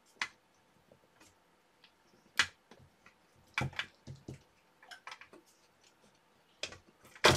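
Scattered small clicks and ticks of a hex screwdriver working screws into a model ship's hull side panel, with the parts knocking lightly as they are handled. A louder quick run of clatters comes near the end.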